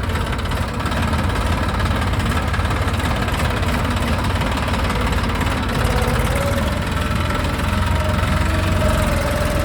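Tractor diesel engine running steadily. A faint wavering whine joins in about halfway through.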